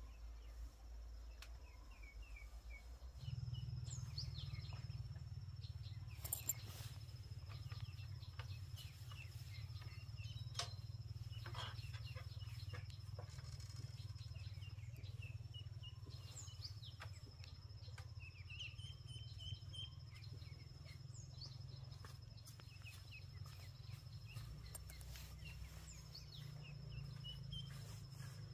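Faint outdoor ambience: scattered short bird chirps and a steady high insect drone over a low rumble that grows louder about three seconds in, with a few sharp clicks.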